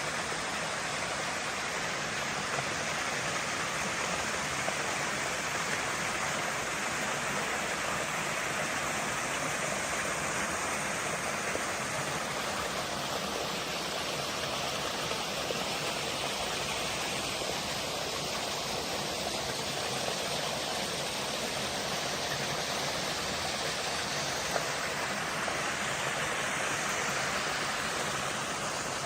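Steady rush of running water, like a mountain stream or small waterfall.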